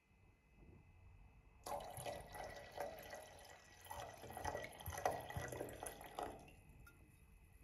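White wine poured from a bottle into a wine glass, a splashing, gurgling stream that starts suddenly about two seconds in and stops about six seconds in.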